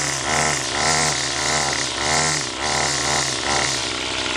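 Small gas engine of a string trimmer (weed eater) running and being revved up and down over and over, about six surges, while the newly repaired trimmer head is test-run.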